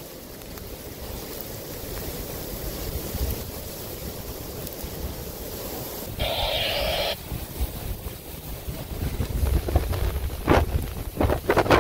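Severe-thunderstorm straight-line winds with wind-driven heavy rain: a steady rush of wind and rain with wind buffeting the microphone. A brief hiss comes about six seconds in, and the gusts grow stronger and louder near the end.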